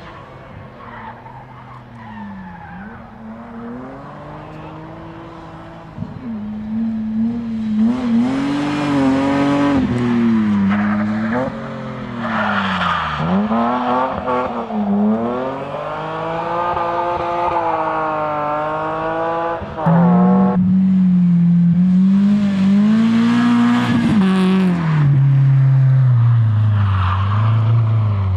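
A rally car's engine revving hard through a stage, pitch climbing and dropping again and again with gear changes and lifts. It starts faint, grows louder about a fifth of the way in, and is loudest about two-thirds in as the car comes close. Near the end the pitch sinks steadily as the car moves off.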